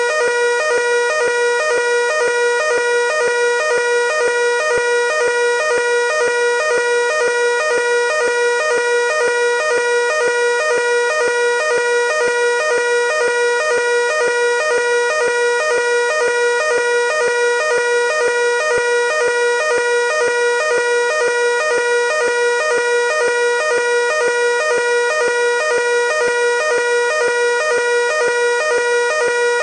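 Building fire alarm evacuation signal sounding continuously: a loud electronic tone with a fast, even pulsing rhythm, signalling everyone to evacuate.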